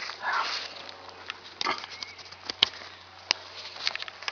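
Nylon tent fabric rustling as a flexible tent pole is handled, with scattered sharp clicks and taps; the sharpest comes about two and a half seconds in.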